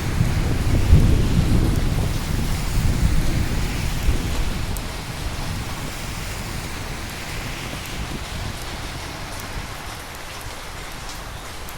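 Steady rain with a long roll of thunder rumbling loudly in the first few seconds, then dying away under the rain.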